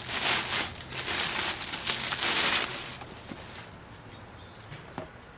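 Clear plastic bag crinkling and rustling as a boot is pulled out of it, busy for about three seconds, then dying down to faint handling noise. A single light tap near the end.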